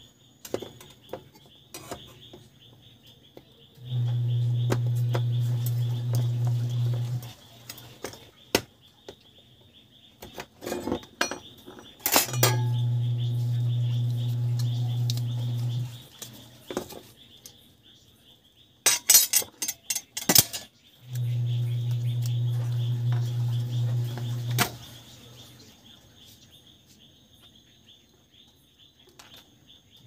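Metal clinks and clicks from handling a car stereo's sheet-metal chassis and circuit board, with a quick run of sharp clinks about two-thirds of the way through. A steady low hum comes on three times, about three and a half seconds each time, and a faint steady high whine runs underneath.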